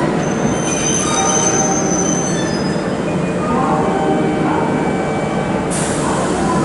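Kintetsu electric train running on the rails, with a high wheel squeal over the first few seconds and several whining tones over the steady rumble; a hiss starts suddenly near the end.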